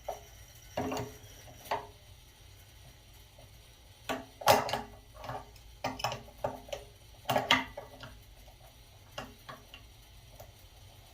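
Irregular clinks and knocks of a wrench on threaded plumbing fittings as a leaking thermal expansion tank is unscrewed from a water heater's piping. The loudest knock comes about four and a half seconds in, with another cluster a few seconds later.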